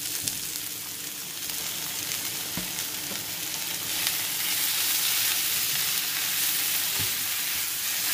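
Beef and vegetables stir-frying in teriyaki sauce, sizzling steadily in a hot pan as they are stirred, with a few knocks of the utensil against the pan. The sizzle gets louder about four seconds in.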